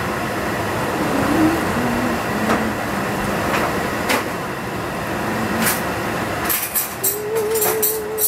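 Steady rushing noise of a kitchen gas range with a steaming pot of soup on it, with a faint wavering tune underneath. Near the end a metal ladle clinks several times against the stainless-steel pot as broth is scooped out.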